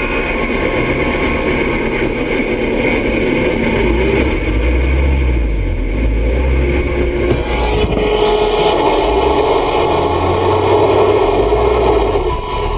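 Steady engine and road noise heard inside a vehicle's cab, with a low rumble that shifts slightly in pitch partway through.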